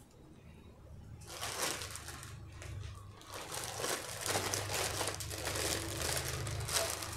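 Thin clear plastic bag crinkling as roasted poblano chiles go into it and it is handled and closed, so the chiles sweat and their skins can be peeled. The crinkling starts about a second in and keeps going unevenly.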